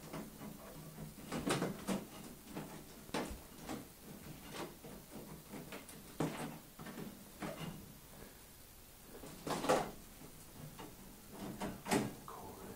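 A crystal rhinestone mesh sheet being handled on a paper-covered table: irregular clinks, rattles and rustles, with the loudest clatters about two thirds of the way in and near the end as the mesh is lifted.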